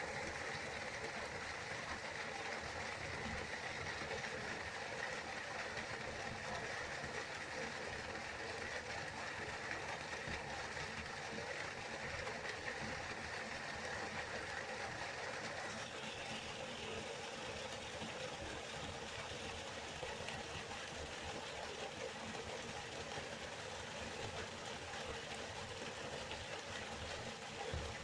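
River water flowing, a steady rushing with no pauses; its tone brightens slightly a little past halfway.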